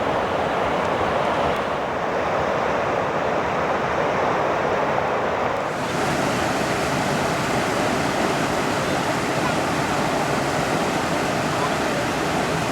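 Rushing mountain river water over rocks, a steady, even roar that turns brighter and hissier about six seconds in.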